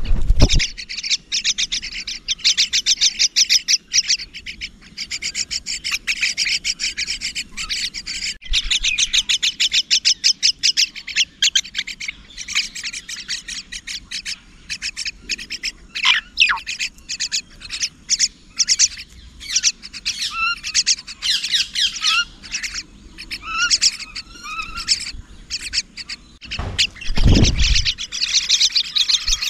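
Mynas chirping in rapid runs of quickly repeated high notes, with a few short rising notes around the middle. A brief low rumble sounds near the end.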